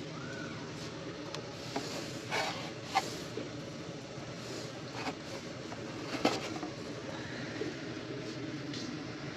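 Warehouse-store background noise: a steady din with a low hum, broken by a few sharp clacks and knocks, the loudest about three and six seconds in, from goods and a plastic tub being handled.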